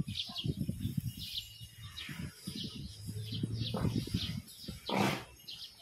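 Small birds chirping over and over, with irregular low rumbling and knocking underneath. About five seconds in comes a short, loud rush of noise.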